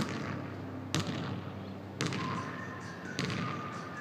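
A basketball dribbled on a hardwood gym floor: four bounces about a second apart, each echoing through the large hall.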